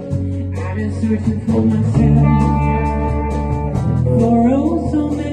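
Band music without singing: guitar with bass and drums playing an instrumental passage between vocal lines, with a few sliding notes near the end.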